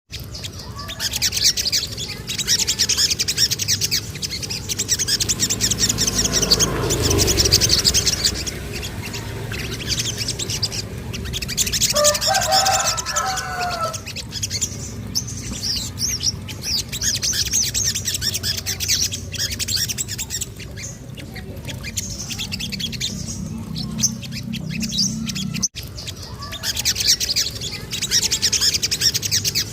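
Little spiderhunter (sogon) singing: bouts of rapid, high-pitched chirping trills, repeated again and again. A short, lower-pitched call comes in about twelve seconds in.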